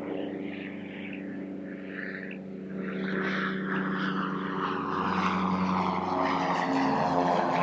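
Cessna 310 on landing approach, its twin piston engines and propellers droning and growing steadily louder as it comes closer, the engine note dipping slightly near the end.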